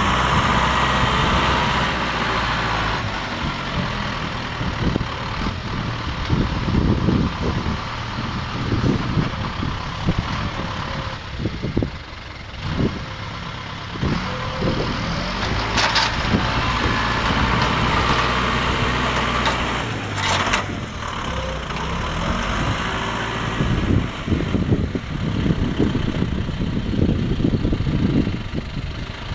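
Farm tractor engine running steadily while hay-baling machinery works. A mechanical hiss comes and goes over the engine rumble, with two sharp clanks about two thirds of the way through.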